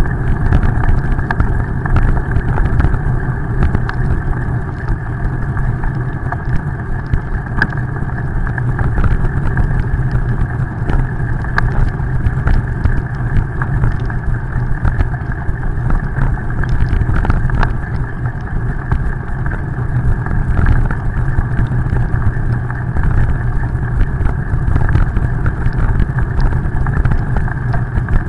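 Steady wind rumble and wet-road tyre noise picked up by a camera riding along on a bicycle, with scattered small clicks.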